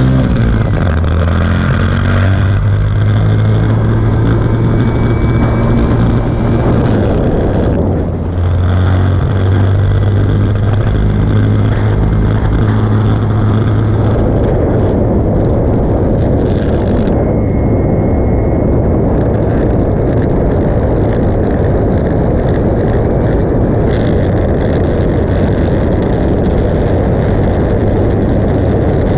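Motorcycle riding at road speed: a steady engine note with strong wind rush over the microphone. The engine note is clear for the first half, dips briefly about eight seconds in, and from about halfway on wind rush covers it.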